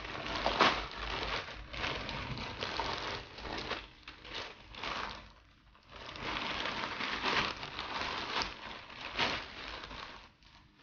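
Shipping packaging crinkling and rustling as hands open the package and dig through its contents, with a short lull about halfway through.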